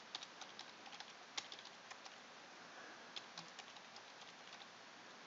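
Faint computer keyboard typing: irregular keystroke clicks in short runs.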